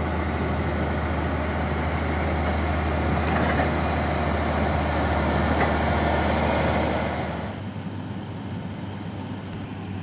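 Motor vehicle engine running steadily with a low hum; the sound drops in level about seven and a half seconds in.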